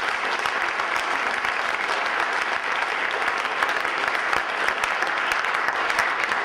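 Conference audience applauding steadily: many hands clapping at once in a large hall.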